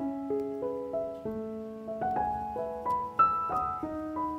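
Background piano music: a gentle melody of single notes, each ringing and fading as the next one sounds.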